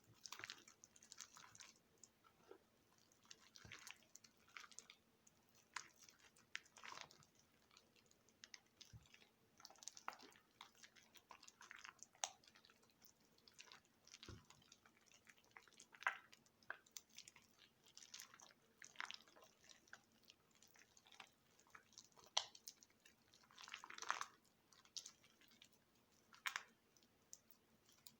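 Soft, waterlogged bar soap being squished and broken apart, giving quiet, short wet crunching and squelching sounds at irregular intervals, a few every couple of seconds.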